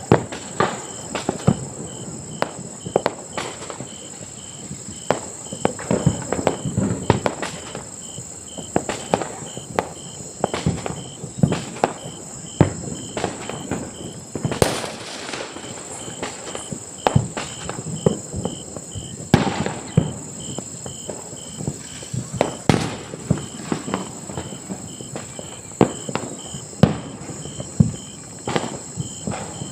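Distant firecrackers going off in an irregular, continuous string of pops and bangs, several a second, some much louder than others.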